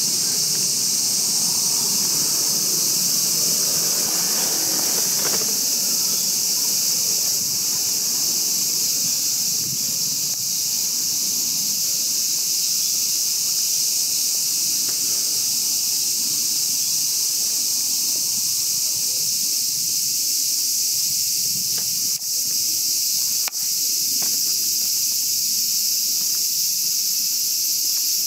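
Steady, high-pitched chorus of insects shrilling without a break. A low rumble sits underneath for the first few seconds, and two faint clicks come near the end.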